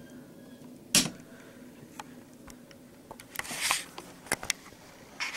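Scattered sharp clicks and knocks, the loudest about a second in, with a short hissing rustle just past the middle.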